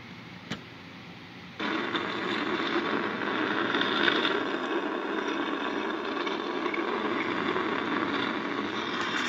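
Soundtrack of a news video about a capsized cargo ship, played on a computer: a single click, then a steady noise that cuts in suddenly about a second and a half in and holds.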